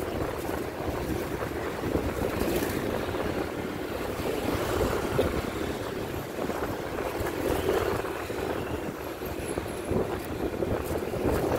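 Wind buffeting the microphone and road noise from riding along a street in traffic: a steady rushing noise that swells and eases in gusts.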